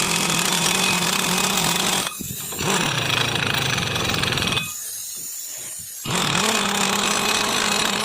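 A power tool's motor running in three long bursts with short pauses between them, a steady hum with a hiss over it, spinning up at the start and winding down at the end.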